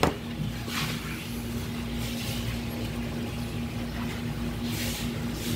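A steady low mechanical hum, like a motor running, holding one even tone, with brief soft hisses about a second in and near the end.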